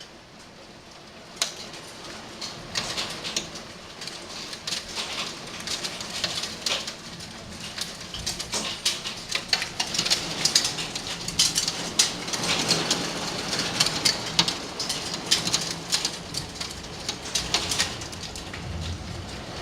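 Hail pelting down with rain: a dense, irregular patter of sharp cracks from hailstones striking the window and surfaces. It grows heavier from about a second and a half in.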